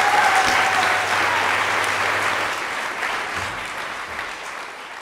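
Audience applauding after a song, the clapping dying away gradually over the last few seconds.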